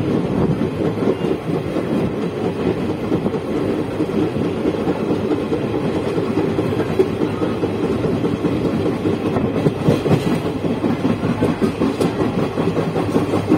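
Indian Railways express coach running at speed, heard at its open door: a steady rumble of wheels on the rails with irregular rattling knocks of the wheels over the track.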